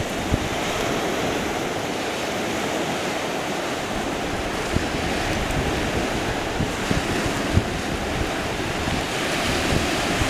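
Steady rush of surf with wind buffeting the microphone in uneven low thumps.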